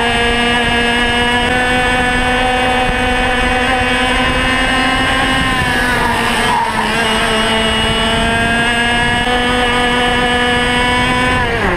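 Two-stroke TaG racing kart engine running at steady high revs, a constant pitched buzz with a slight dip in pitch about halfway through. Just before the end the revs fall sharply.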